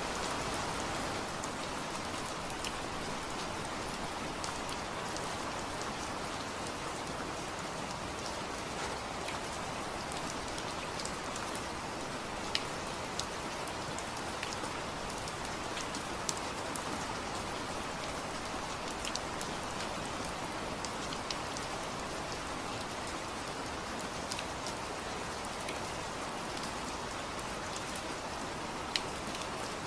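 Steady rain falling, a constant hiss with many distinct drop impacts ticking on a hard surface.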